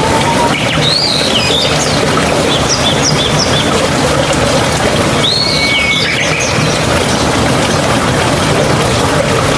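Steady rush of flowing mountain water, with small birds chirping over it: a few quick rising-and-falling calls about a second in, a run of short repeated notes soon after, and another call about five seconds in.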